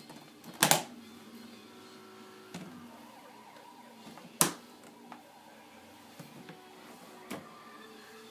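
Aluminium-framed hard carrying case being shut and handled: a loud double snap about a second in, another sharp snap a little past the middle, and a few lighter clicks and knocks as it is lifted by its handle and stood on end. A steady low hum runs underneath.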